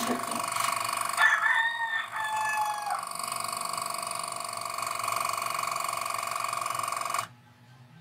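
TOTAL 12 V tire-inflator compressor motor running steadily, pumping into a fire-extinguisher-tank air reservoir, with a brief higher pitched tone between one and three seconds in. It cuts off suddenly about seven seconds in, the pressure switch that is being set to 35 psi stopping the motor.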